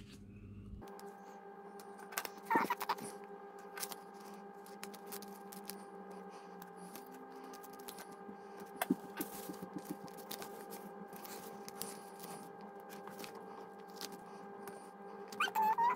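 Hands peeling stickers off a sheet and pressing them onto a paper planner page: small scattered paper rustles, taps and crinkles. Under them runs a faint steady hum that starts about a second in, and a short chirp sounds near three seconds in and again at the end.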